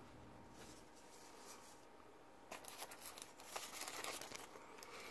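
Faint rustling and crinkling of paper and card packaging being handled, a quick run of small crackles and clicks that starts about halfway in after a quiet stretch of room hiss.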